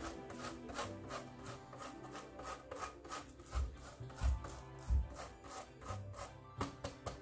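Frozen shortcrust dough being grated on a metal box grater: steady rasping strokes, about three a second, with a few dull low knocks near the middle.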